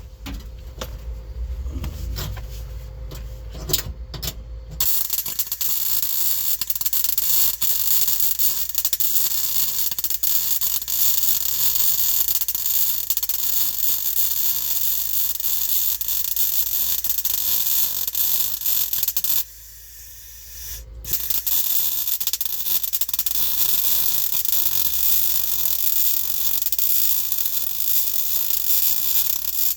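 Welding arc crackling steadily as a new steel floor pan is welded in. It starts about five seconds in, stops briefly about two-thirds of the way through, then starts again.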